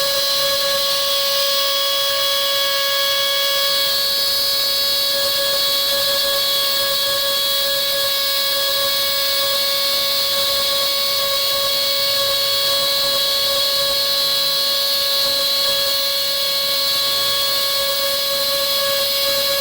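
CNC router spindle running at constant speed: a steady high-pitched whine with evenly spaced overtones over a hiss. Its upper tones grow stronger about four seconds in.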